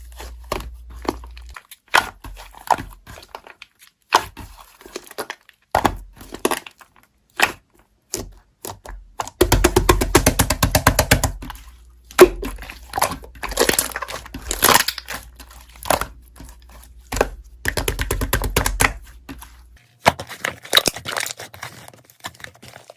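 Slime being pressed and pulled by hand, giving sharp crackles, pops and crinkly tearing sounds in uneven bursts, with a dense run of rapid popping around the middle.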